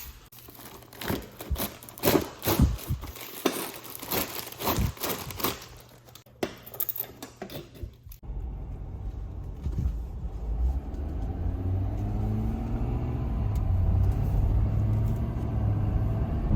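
A run of clicks, clatters and rustling from handling things, then, about halfway through, a vehicle engine comes in with a steady low rumble and keeps running, the sound of a truck driving.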